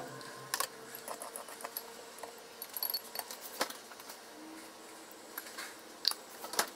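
Scattered light clicks and clinks of kitchen utensils and containers being handled: chopsticks and a spoon against a glass mixing bowl, and packets and bottles picked up and set down on the counter.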